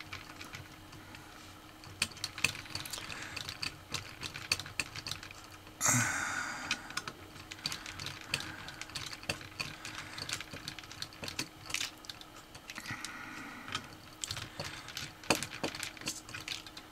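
Irregular small clicks and taps of fingers handling jumper wires and their plug-in connectors on a metal robot chassis, with a louder rustling scrape about six seconds in.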